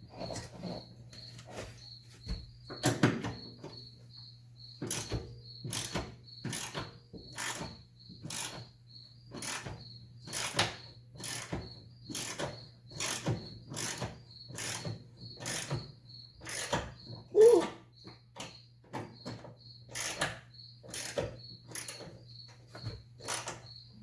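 Ratchet wrench turning a tight 10mm bolt in steady back-and-forth strokes, a sharp click on each swing about every two-thirds of a second from about five seconds in. A cricket chirps steadily in the background over a low hum.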